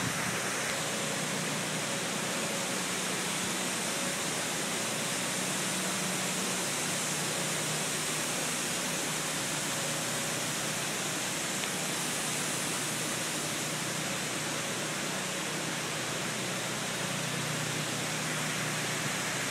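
Hangar foam fire-suppression system discharging: foam solution spraying from the floor grate nozzles with a steady rushing hiss and a faint low hum underneath.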